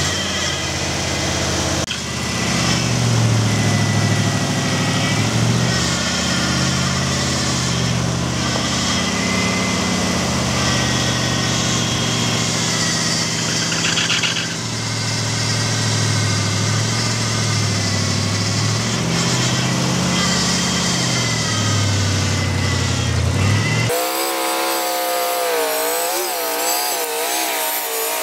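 The freshly rebuilt engine of a 1986 Ford F250 pickup running while the truck is driven at low speed, its note rising and falling with the throttle. It is running smoothly. About four seconds before the end the sound changes abruptly: the low rumble drops out and a higher, wavering tone remains.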